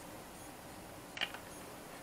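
Faint room hiss with a brief light click, two quick ticks about a second in, from a nut and toothed lock washer being threaded by hand onto a brass antenna connector.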